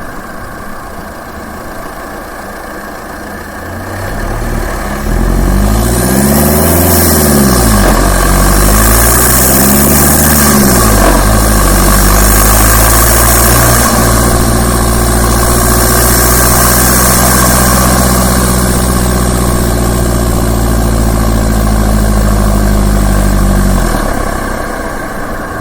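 Turbo diesel engine idling, then revved twice, each rev rising and falling. It is then held at a steady raised speed for several seconds before dropping back near the end. A rushing hiss of turbo and intake air rides over the revs.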